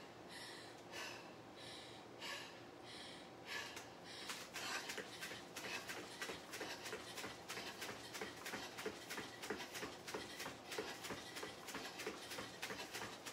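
Bare feet landing on foam floor mats while running in place doing high knees, an even beat of about three footfalls a second that starts about four seconds in. Before that, and under the footfalls, there is hard breathing.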